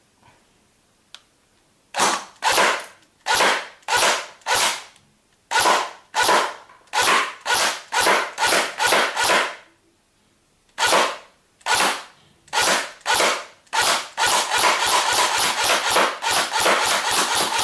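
Airsoft AK-105 replica firing single shots on semi-automatic, starting about two seconds in. After a short pause near the middle, the trigger pulls come faster, several a second and almost running together toward the end.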